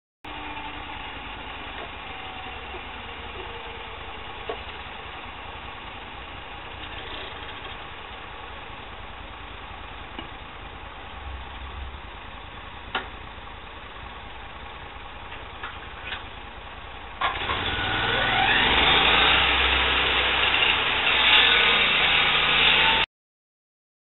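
Portable circular sawmill's petrol engine running steadily at low speed, then revved up sharply about seventeen seconds in, the pitch sweeping upward as the saw spins up and then holding loud and steady. The sound cuts off abruptly near the end.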